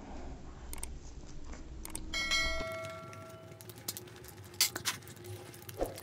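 A few mouse-click sounds, then about two seconds in a ringing notification-bell chime that fades over a second or so, the sound effect of a YouTube subscribe-and-bell overlay. Faint eating sounds run underneath, with a few sharp clicks near the end.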